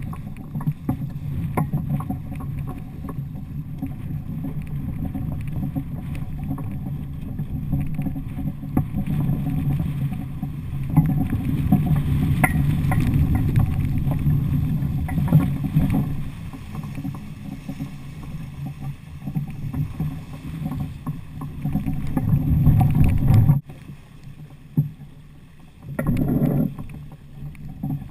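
Water rushing and splashing along the hull of a Laser II sailing dinghy moving fast under sail, mixed with wind buffeting the camera's microphone. It drops off suddenly near the end, then surges back briefly.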